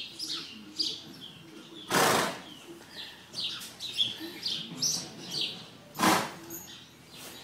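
Small birds chirping repeatedly in short, high, falling notes. Two loud, short breathy whooshes stand out, about two seconds and six seconds in.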